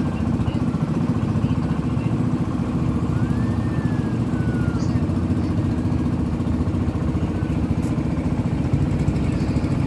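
Boat engine running steadily at a low, even pitch, moving a floating bamboo cottage along the river.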